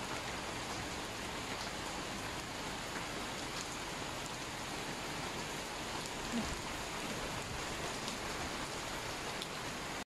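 Steady rain falling on a garden and wet paving, with occasional drops ticking. A single soft low thump comes a little past six seconds in.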